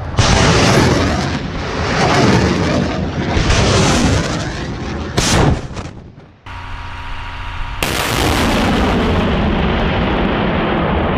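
M142 HIMARS rockets launching: a sudden loud rush of rocket exhaust that swells in several surges, with a sharp burst a little after five seconds. After a short steady hum, the rushing exhaust noise of another launch holds steady to the end.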